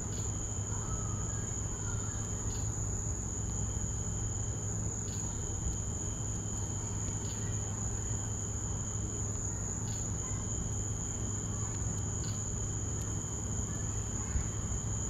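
Night insects trilling: one steady high continuous trill, with a second, lower trill starting and stopping in stretches of about two seconds, over a low steady hum.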